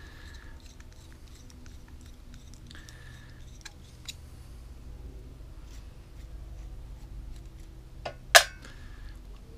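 Small metallic clicks and handling noises from a screwdriver working the adjustment screws of a lawnmower carburettor, with one sharp metallic clink a little past eight seconds in.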